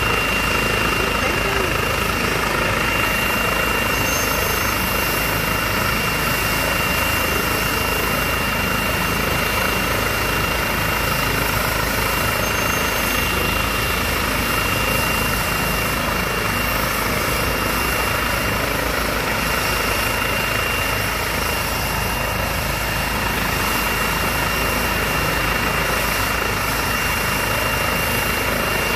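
Air ambulance helicopter running on its helipad before lift-off: rotor and engine noise at a steady pitch, with a thin high whine held over it.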